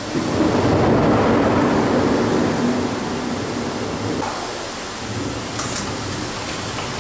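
Heavy rain falling steadily, with a rumble of thunder that swells just after the start and slowly dies away.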